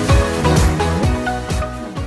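Background music with a steady beat under sustained instrumental notes.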